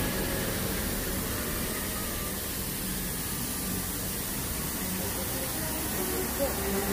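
Steady background hiss of street ambience with a faint low hum, and one small tap near the end.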